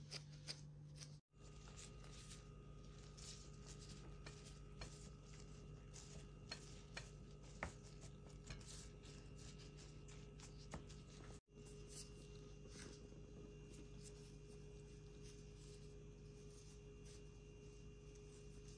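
Near silence: room tone with a faint steady hum and a few small, soft clicks. The sound drops out completely twice, briefly.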